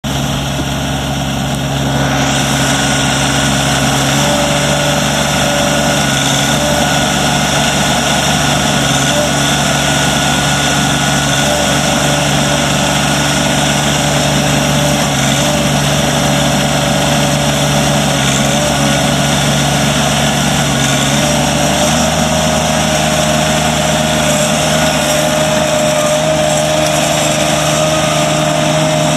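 Toro Dingo TX525 compact track loader's 25 hp Kubota diesel engine running steadily, its note shifting slightly a few times.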